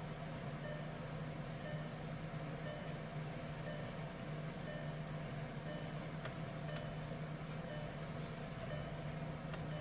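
A car's dashboard warning chime repeats about once a second over a steady low hum. The 2012 VW Jetta TDI's ignition is switched on with the engine off, to prime the fuel system after a fuel filter change. A few faint clicks.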